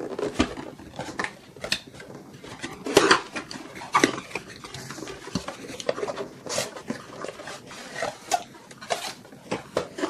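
Cardboard CPU retail box being opened by hand: flaps and the inner box sliding and rubbing against the outer sleeve, with scattered taps and clicks, the sharpest about three and four seconds in.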